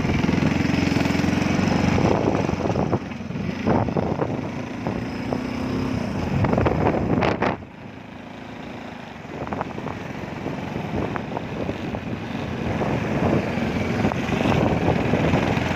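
A vehicle engine running while on the move, with road and wind noise. About seven seconds in there is a short sharp knock, after which the engine runs quieter for a couple of seconds before picking up again.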